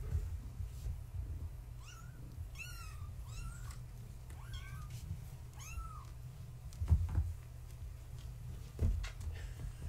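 Young kittens mewing, about half a dozen high calls that each rise then fall, coming in a quick series for a few seconds. Later come two dull thumps as the kittens play, over a steady low hum.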